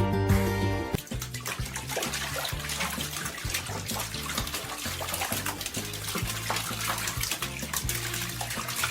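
Water running and splashing, like a tub or sink being filled, over quiet background music. Before that, music alone plays for about the first second.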